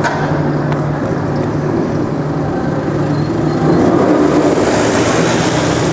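Lamborghini Diablo SV's V12 engine idling with a steady low note, getting louder about four and a half seconds in.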